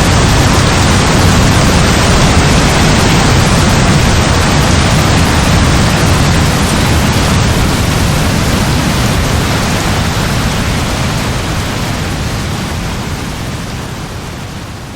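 Heavy rain pouring steadily, a dense, even hiss with a strong low rumble, slowly fading out over the second half.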